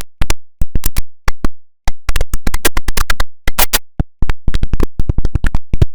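IBM OS/2 Warp 3 shutdown sound chopped into rapid stuttering fragments: many short, sharp electronic blips, several a second, at an uneven rhythm with brief silent gaps between them.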